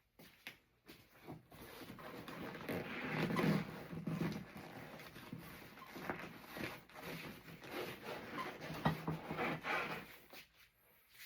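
Upholstery cover of a car seat being pulled up off the foam: irregular rustling and tearing of fabric and foam, strongest twice, about three to four seconds in and again near nine seconds.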